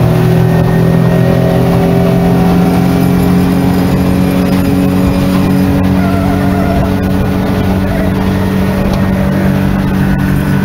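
50 hp outboard motor on a 13-foot aluminium boat running steadily at high speed, a continuous engine drone.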